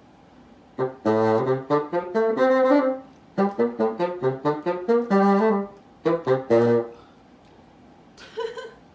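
Bassoon playing phrases of quick, separate notes that start about a second in, with short breaks between phrases, and stop about two seconds before the end.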